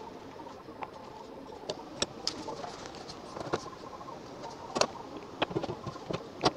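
About ten light clicks and knocks, irregularly spaced, like small hard objects being handled and set down; the sharpest come near the end.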